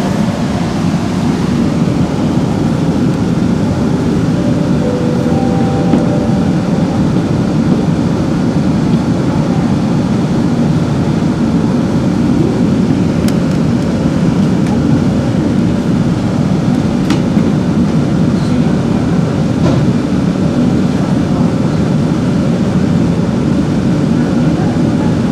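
Steady low hum and rumble of an MRT train car standing at an underground station platform with its doors open, its onboard equipment running.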